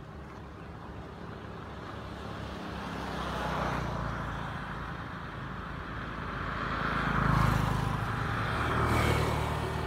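Passing road traffic: engine and tyre noise swelling and fading several times, loudest about three-quarters of the way through.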